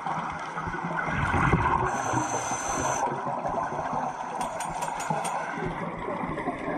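Underwater sound of a scuba diver breathing through a regulator. A gurgling rush of exhaled bubbles comes about a second in, then a steady high hiss for about a second. A few faint sharp clicks follow near the middle.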